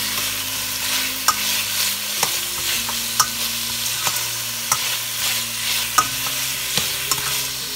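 Sliced onions and bell peppers sizzling in a hot frying pan as they are stir-fried, with a steady hiss and the stirring utensil clicking against the pan about once a second.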